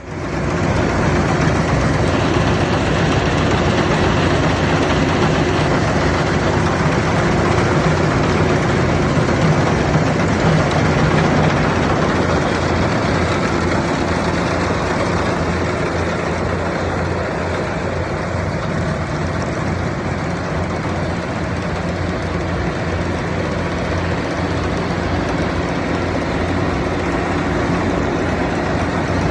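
Engine of a rice-harvesting machine running steadily under load, with a constant low drone and a broad mechanical clatter over it.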